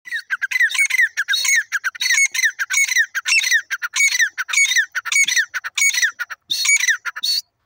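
Grey francolin calling: a loud, shrill phrase repeated over and over, about one and a half phrases a second, each made of quick falling notes. It stops just before the end.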